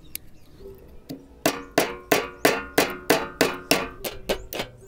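Hammer tapping a thin metal rod used as a punch, about three strikes a second from a second and a half in, each with a short metallic ring. It is knocking the black insert out of the aluminium cap of a dead LED bulb.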